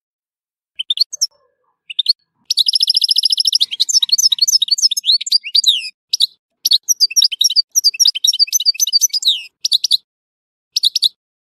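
European goldfinch singing: quick high twittering phrases with a fast, even trill about two and a half seconds in, broken by short silent gaps.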